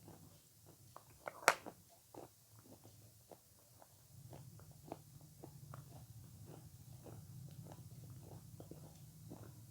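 Close-miked eating of avocado: one sharp bite about a second and a half in, then soft chewing full of small wet mouth clicks. A low steady hum comes in about four seconds in.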